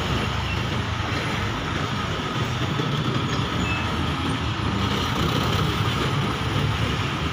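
Loaded cargo trucks and motorcycles driving past close by, their engines running in a steady traffic rumble.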